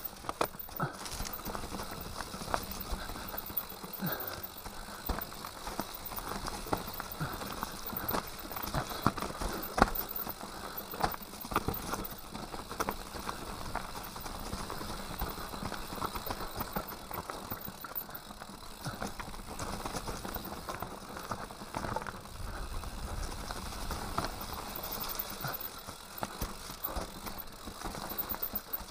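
Mountain bike ridden down a dry, leaf-covered, stony forest trail: tyres crunching over leaves and stones, with constant rattling and many sharp clicks and knocks from the bike over the bumps.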